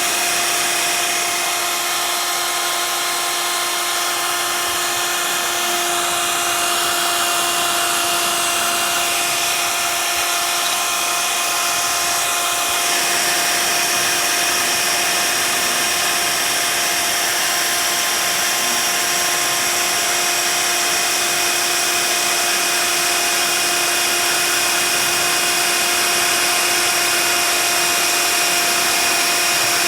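CNC router spindle running at a steady high speed, milling expanded PVC sheet: a constant whine over a hiss, with the cutting noise shifting between about six and thirteen seconds in.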